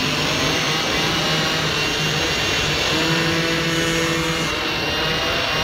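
A pack of small moped engines buzzing steadily on the move, with wind rushing over the microphone.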